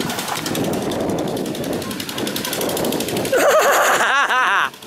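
A small motor running with a rapid, even pulsing. A louder wavering pitched sound follows about three seconds in and cuts off suddenly just before the end.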